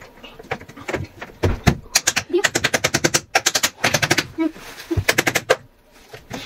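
Plastic panels and connector pieces of a DIY cube shoe rack clicking and clattering as they are handled and fitted together, with quick rattling runs of clicks in the middle.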